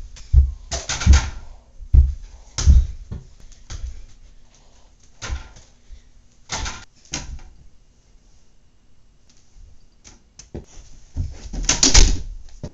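A small ball hitting a toy mini basketball hoop and a wooden door and dropping to the floor, heard as a string of irregular thumps and knocks. The loudest thumps come near the end.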